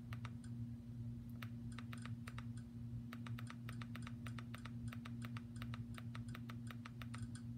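Handheld TV-box remote's arrow button pressed over and over, a quick run of small plastic clicks, several a second, over a steady low electrical hum.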